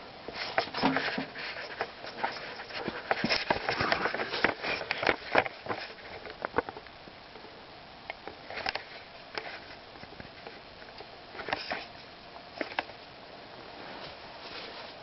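Irregular clicks and ticks, thick for the first six seconds and then sparse, as a vintage Lasko ceiling fan is switched off and coasts down.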